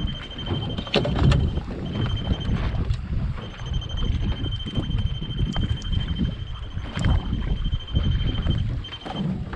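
Wind buffeting the microphone and water slapping against a small fishing boat's hull, an uneven low rumble with occasional knocks. A thin, steady high tone sounds underneath, with a few short gaps.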